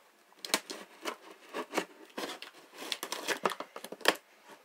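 Packaging being handled and torn open: irregular crinkling, rustling and tearing with sharp crackles throughout.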